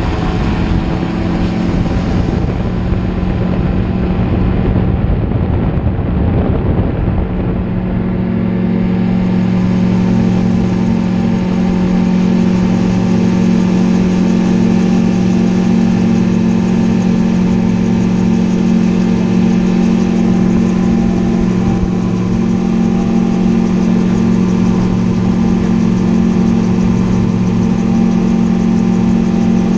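Gyroplane engine running steadily at high power through the takeoff roll and climb-out, an even droning hum. For the first several seconds a rough rumble sits under it, then it settles to a smooth steady tone.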